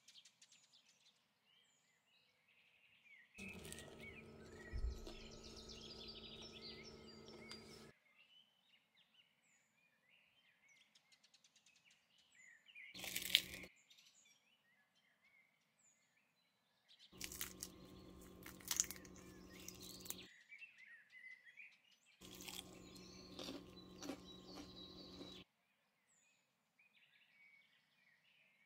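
Crisp fried burek pastry crackling and crunching as gloved hands break the rolls open. It comes in four separate stretches, each with a low steady hum behind it. Faint bird chirps sound in the quiet between.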